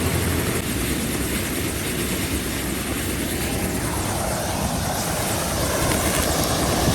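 Helicopter rotor blades beating steadily and loud, with a dense wash of engine and rotor noise.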